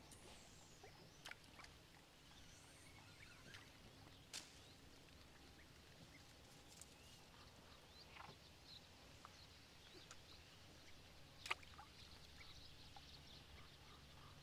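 Near silence: faint outdoor ambience with a few soft clicks, the clearest about eleven seconds in.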